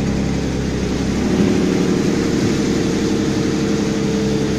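Car engine running steadily, a constant drone with a low hum beneath it.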